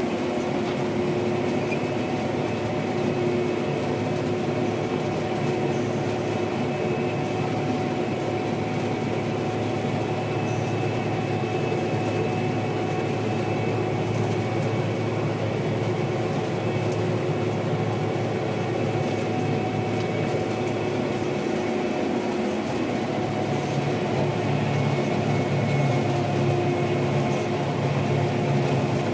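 Gleaner R72 combine running steadily under harvest load, a constant machinery drone with steady whining tones over it; the low part of the drone shifts slightly about two-thirds of the way through.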